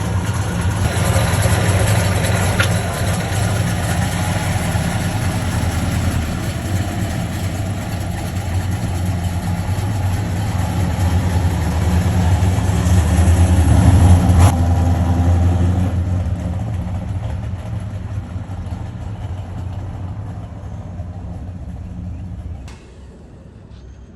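A vehicle engine running steadily at a low idle-like pace. It grows louder to a peak a little past the middle, then fades, and drops off suddenly near the end.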